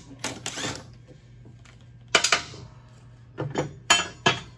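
Hand tools and metal parts clinking and clanking, about six separate sharp knocks over a few seconds, as the mower deck's blades are being taken off.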